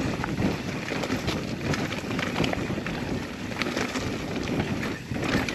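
Mountain bike riding down a dirt forest trail: wind buffeting the microphone over the steady rumble of knobby tyres on dirt, with scattered clicks and rattles from the bike.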